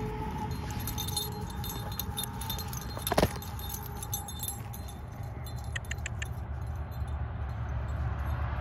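Metal tags jingling on a dog's collar during tug-of-war play, over a steady low rumble. One sharp knock comes about three seconds in, and a few light clicks follow a few seconds later.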